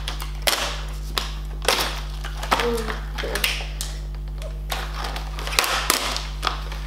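Plastic toy packaging crinkling and rustling as it is handled and pulled open, in irregular crackles and clicks, over a steady low electrical hum.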